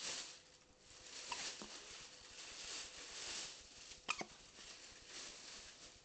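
Hiccups: a soft hic about a second in and a sharper, louder one about four seconds in.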